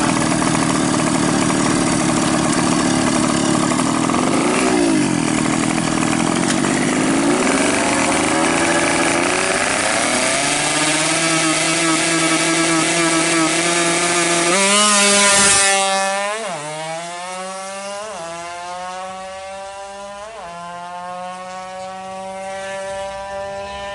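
Yamaha F1ZR 110cc two-stroke drag-bike engine on a big 34 mm carburettor, revved hard at the start line, then launching and accelerating away. The note climbs and drops back at each of three quick upshifts while it gets fainter.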